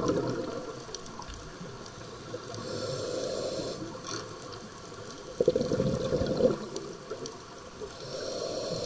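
A scuba diver breathing through a regulator underwater: exhaled bubbles gurgle at the start and again about five and a half seconds in, with softer hissing inhalations between them.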